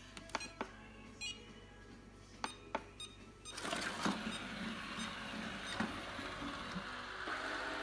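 Robot vacuum cleaner: a few clicks and short beeps, then its motor and brushes start whirring about three and a half seconds in and keep running steadily.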